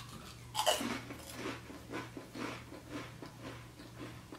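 Crunching of a Pringles crisp in the mouth at close range: a loud first crunch about half a second in, then steady chewing at about two crunches a second.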